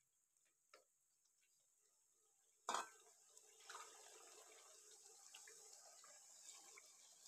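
Faint ticks of a ladle in a pot, then a short clatter about three seconds in, followed by a faint steady watery hiss as water is poured from a bowl into the pot of chicken curry gravy.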